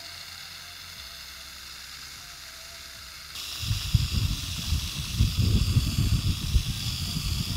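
Hose-end watering wand spraying a soft shower of water onto wood-chip mulch: a steady hiss that grows louder about three and a half seconds in, joined by an uneven low rumble.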